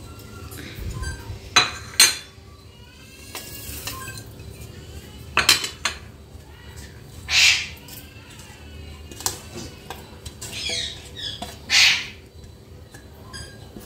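Roasted whole spices and fried onions being tipped and scraped into a steel mixer-grinder jar: a few sharp metal clinks, with short swishes of the food sliding in.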